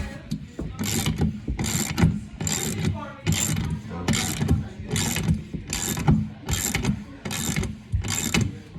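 Hand ratchet wrench working a bolt, its pawl clicking in repeated strokes about two a second.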